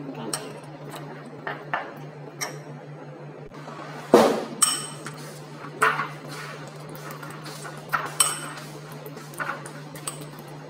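Metal fork mashing soaked dates in a ceramic bowl, clinking and knocking against the bowl at irregular intervals, loudest a little over four seconds in.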